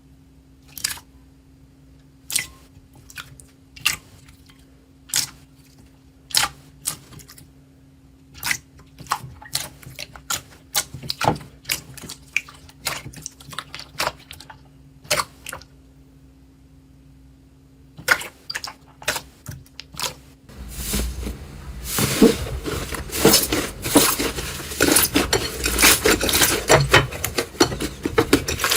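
Slime being handled: scattered sticky pops and clicks, roughly one a second, then about two-thirds of the way in a dense, louder crackling as the slime is squeezed and worked.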